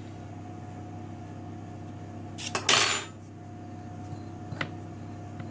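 A brief clatter of a kitchen utensil against a hard surface about two and a half seconds in, then a faint click, over a steady low hum.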